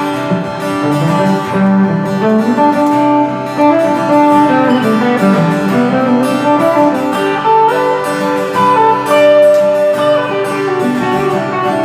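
Guitar playing the instrumental introduction to a song, picked notes and chords before the vocals come in.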